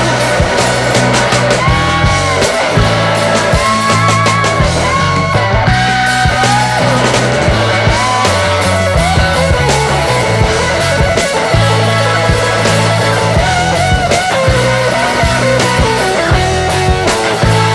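Rock music with guitar over a steady bass line.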